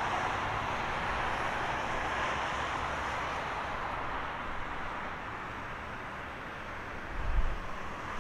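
Airbus A320neo jet engines running as the airliner touches down and rolls out: a steady rushing hiss that slowly fades. A low rumble of wind on the microphone comes in near the end.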